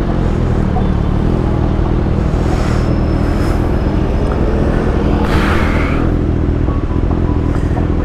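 Kawasaki ZX6R 636's inline-four engine running at low, fairly steady revs through a loud Austin Racing GP1R aftermarket exhaust, with a brief rush of hiss about five seconds in.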